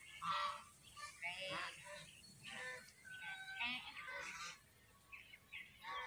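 Birds calling in short honks, repeated many times, with a brief lull about five seconds in.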